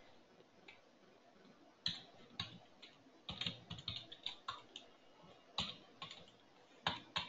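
Computer keyboard typing: irregular short key clicks, starting about two seconds in and coming in small clusters.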